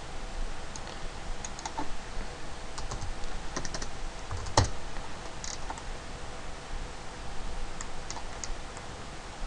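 Computer keyboard keys tapped in short, scattered groups, with one sharper click about four and a half seconds in, over a faint steady hum.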